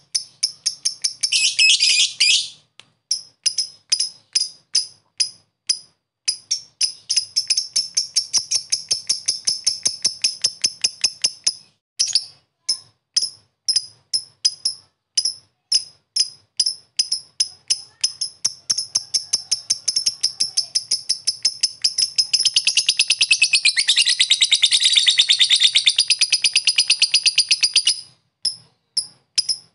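Blue masked lovebird calling in its 'ngetik' style: short, sharp, high chips repeating several times a second. A brief burst of fast chatter comes about two seconds in. Near the end a long, dense chattering trill (ngekek) runs for about six seconds before the chipping resumes.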